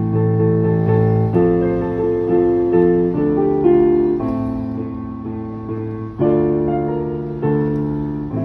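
Digital piano played with both hands: slow, sustained chords, a new one struck roughly every second, with a longer held chord in the middle and two more spaced out near the end.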